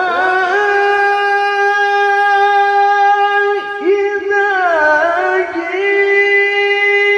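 Male Quran reciter's voice in tilawah, amplified by a handheld microphone, holding one long high note, with a wavering ornamented dip in the middle before settling back on the same pitch. His voice is hoarse and forced.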